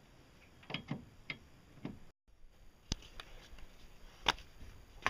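A series of sharp clicks and knocks as metal and plastic parts of a pedal crank and gear assembly are handled and fitted, the loudest about four seconds in.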